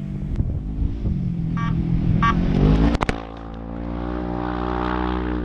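Off-road race vehicle engine revving with rising pitch. About three seconds in it cuts abruptly to a steadier engine note. Two short high toots sound in between.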